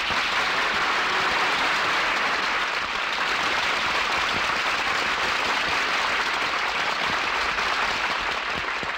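Studio audience applauding steadily, easing slightly near the end.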